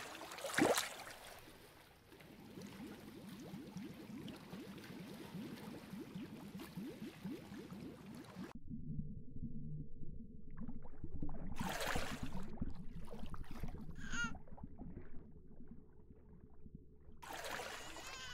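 Water sound effects: bubbling and gurgling. About halfway through, the sound turns suddenly dull and muffled, like being underwater, with two whooshes and a brief wavering tone between them.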